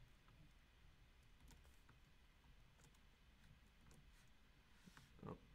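Near silence with a few faint, scattered clicks of computer keyboard keys and a pen stylus on a drawing display, and a short, slightly louder soft sound near the end.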